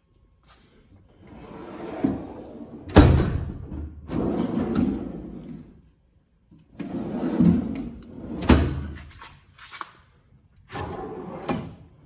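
Steel tool box drawers of an ICON tool box rolling open and shut on their slides, with a sharp metal knock as a drawer closes about three seconds in and again about eight and a half seconds in.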